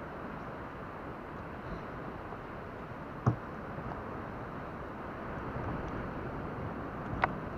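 Two sharp knocks about four seconds apart, from the loaded fishing kayak and its gear being handled on its beach cart, over a steady rushing noise.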